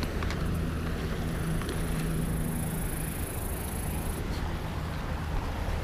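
Wind rumbling steadily on the microphone, with a soft click of a plastic hook box being handled near the start.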